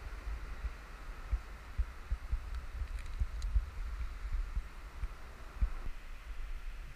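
Irregular low thumps and rumble of wind buffeting and handling on an action camera's microphone, over a faint steady hiss of surf.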